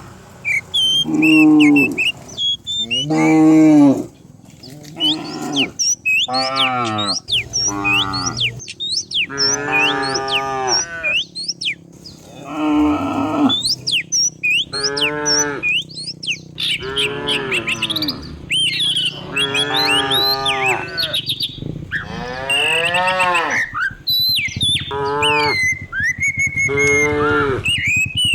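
A herd of cattle mooing over and over, a long moo every second or two with some calls overlapping, and high short chirps above them.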